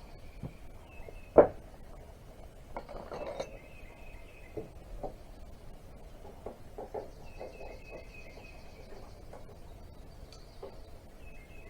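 Hand tools clinking and knocking on metal engine parts during disassembly, with one sharp knock about a second and a half in and a short rattle a couple of seconds later. Birds chirp faintly in the background.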